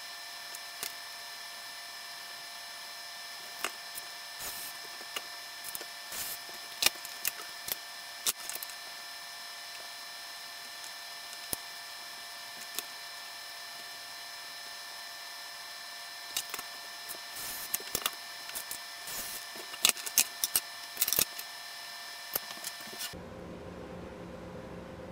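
Irregular sharp clicks and cracks, in two clusters with the loudest near the end, over a steady high-pitched whine. The whine cuts off abruptly near the end, giving way to a low hum.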